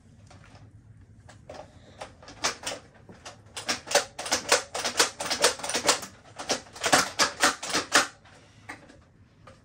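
Toy Nerf foam-dart blaster being fired over and over: a rapid string of sharp plastic clacks, about three or four a second, for about six seconds.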